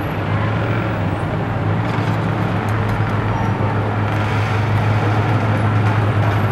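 Steady street traffic noise with a constant low hum underneath.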